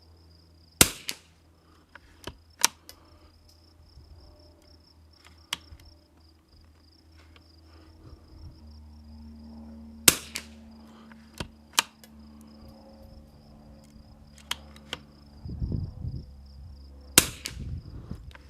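Remington 40X .22 rimfire target rifle firing Eley Tenex rounds from a rest: three single sharp shots, about a second in, about ten seconds in and near the end. Quieter clicks come between the shots.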